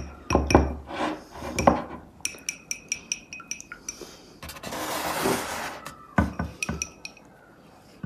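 Pastry brush clinking against a ceramic cup of beaten egg as it is stirred and dipped: a string of quick, light clinks, each with a short ring. About five seconds in there is a brief rustle, then a few more clinks.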